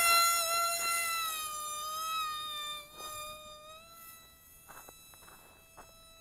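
Brushless electric motor and propeller of a small Hubsan F22 RC airplane at high throttle, just after a hand launch. It makes a high buzzing whine with a slightly wavering pitch. The whine fades as the plane flies away and is mostly gone about four seconds in.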